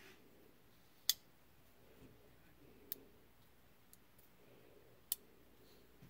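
SIG X5 button-lock folding knife clicking as its blade is worked open and shut: a sharp click about a second in, smaller ticks near three and four seconds, and another sharp click about five seconds in.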